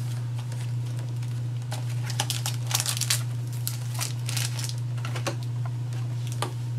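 Crinkling and crackling of foil Pokémon booster packs and a clear plastic blister tray being handled, in a cluster of crackles in the middle, with two sharper clicks near the end. A steady low hum runs underneath.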